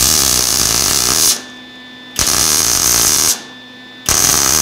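MIG (wire-feed) welder arc running in three bursts of about a second each, starting and stopping abruptly with short pauses between. These are short stitch welds across a gap in a steel tube joint.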